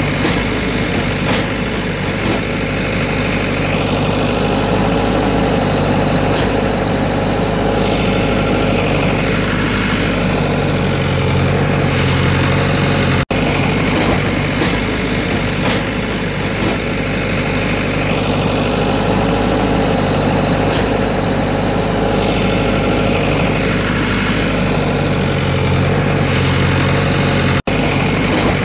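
A looped engine sound effect running steadily: the same stretch of about fourteen seconds plays twice, with a brief cut-out at each join.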